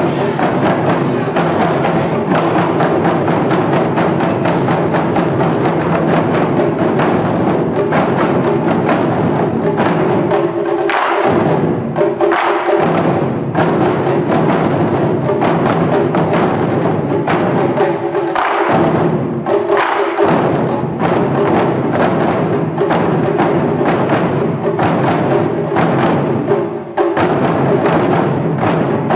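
Japanese taiko ensemble playing: nagado-daiko drums struck in a dense, driving rhythm, the drum parts trading phrases back and forth, with sharp woody clicks among the strikes. The deep drum sound breaks off briefly a few times.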